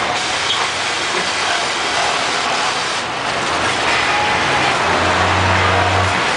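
Industrial multi-needle sewing machine running steadily, with a low hum that comes up about five seconds in and stops shortly before the end.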